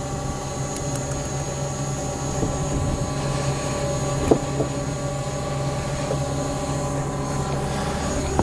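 An engine running steadily at a constant speed, with a brief knock about four seconds in.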